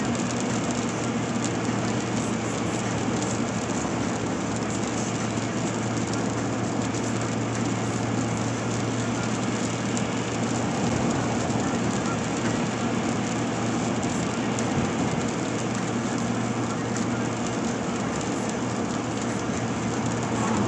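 Steady road noise heard from inside a car's cabin while driving on wet pavement in light rain: tyre hiss with a low, even engine and drivetrain drone.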